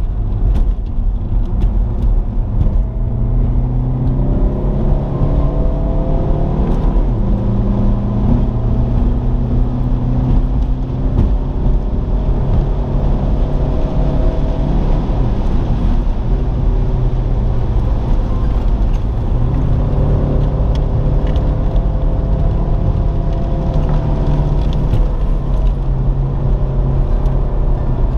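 Alfa Romeo 147's engine heard from inside the cabin while it is driven hard around a circuit. The revs climb and drop back several times, over steady road and tyre rumble.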